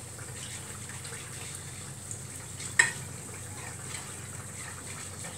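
Milk being poured from a measuring cup into a hot pan of butter-and-flour roux, a soft steady liquid sound, with one sharp clink a little under three seconds in.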